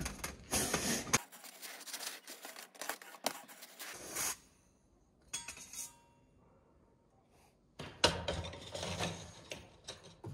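A chimney-sweep brush on a rod scraping and rattling inside a metal chimney flue as it is worked down and up to clear creosote. The scraping goes quiet for a few seconds in the middle, then starts again near the end.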